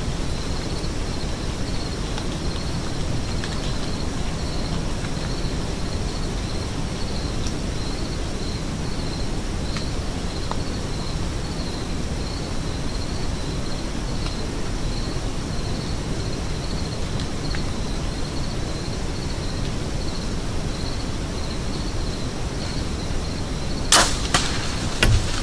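Mathews compound bow being shot: a sharp snap of the string releasing near the end, followed about a second later by a second sharp knock. Before it there is only a steady low hiss, with a faint high chirp repeating about twice a second.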